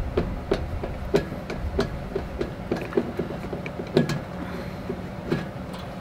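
Sharp metal clicks of a hand screwdriver turning the screws out of an RV water heater's hinged access door, about three a second, thinning out after about four seconds.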